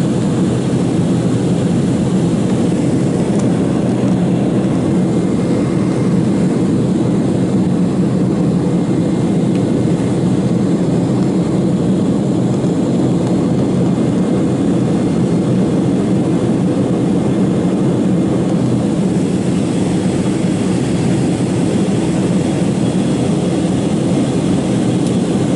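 Steady, low cabin noise of a jet airliner in flight: engine and airflow noise heard from inside the cabin.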